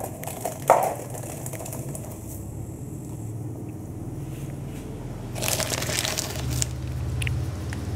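Plastic zip-lock bag crinkling and rustling as it is handled against a plastic tub, loudest for about a second past the middle, with a few sharp knocks about a second in and a low steady hum underneath.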